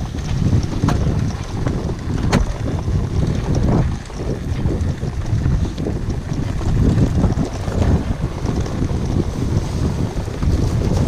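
Wind buffeting the microphone: a loud, uneven low rumble with a few sharp clicks.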